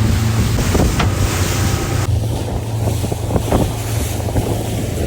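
Motorboat engine droning steadily under wind buffeting the microphone and water rushing and slapping against the hull in rough seas, with a few sharp knocks.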